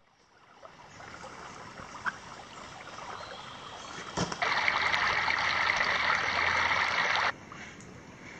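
Creek water running over rocks in the shallows. About four seconds in, a much louder, even rush of water begins, lasts about three seconds, and cuts off suddenly.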